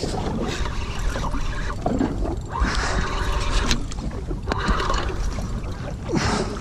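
Water splashing and lapping against a jet ski's hull, with wind rumbling on the microphone; the splashing swells twice, about two and a half seconds in and again near the end.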